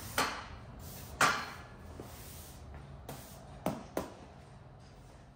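Push broom sweeping a concrete floor: four short, sharp strokes, the second one the loudest, with a gap in the middle before two strokes in quick succession near the end.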